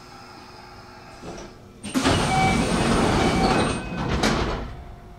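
Hanshin Railway train noise: a sudden loud rush about two seconds in, with a faint steady whine in it, lasting nearly three seconds and then dying away.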